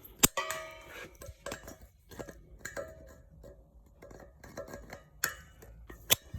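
Metal tools clinking and scraping against a welding CO2 bottle's regulator fitting as the stiff insert is worked, with scattered sharp clicks, one near the start ringing briefly.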